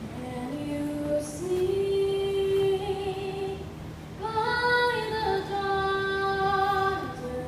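A young girl singing a national anthem solo into a microphone. She holds long notes in two phrases, and the second phrase, starting about four seconds in, is higher and louder.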